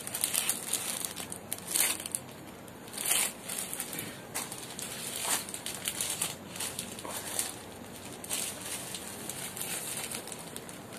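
Small plastic packets of electronic components rustling and crinkling as they are handled, in short irregular spells with brief pauses between.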